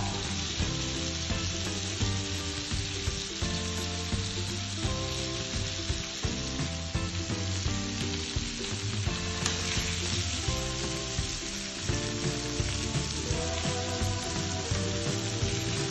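Food sizzling as it fries in a pan, with background music.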